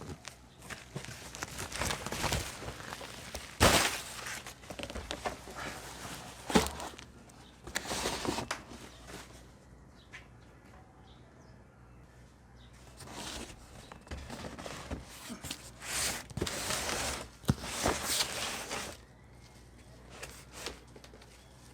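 Packaging being handled during an unboxing: irregular rustling and crinkling with a few sharp knocks, and a quieter pause in the middle.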